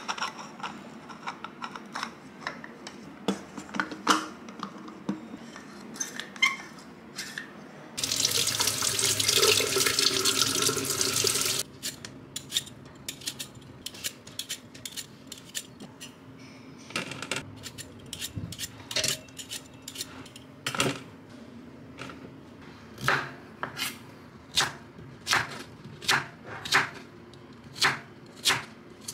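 Clicks and taps from a plastic mooncake mould being handled, then a kitchen tap running into a stainless-steel sink for about four seconds, the loudest sound. Scattered light clicks follow, then a knife chopping sweet potato on a wooden cutting board in steady strokes, about one and a half a second, near the end.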